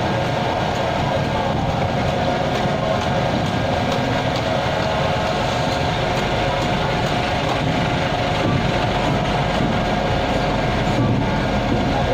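Heavy machinery running steadily: a continuous engine drone with a steady whine on top, and no hammer blows.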